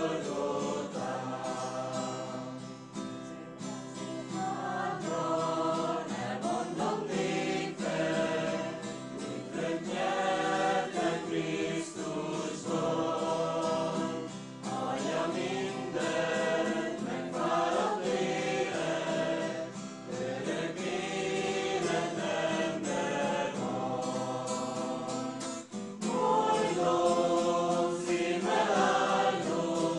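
A choir singing a slow hymn in phrases of long held notes, growing louder near the end.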